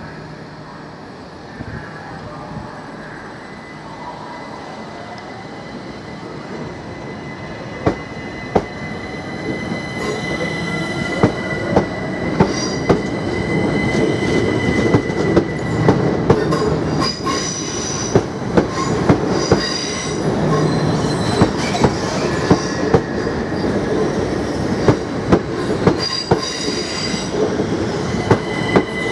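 Class 377 Electrostar electric multiple unit pulling away and gathering speed, growing louder. Wheels clack sharply over rail joints and pointwork, more and more often, with high-pitched wheel squeal over a faint rising whine.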